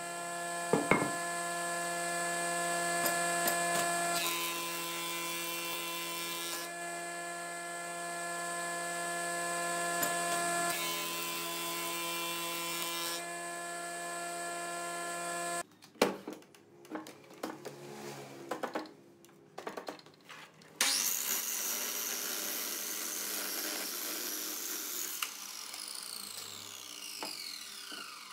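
A jointer runs with a steady hum, and twice a timber block is fed across its cutterhead with a hissing cut. Then a miter saw starts with a high whine and cuts through the block, and its blade winds down with a falling whine near the end.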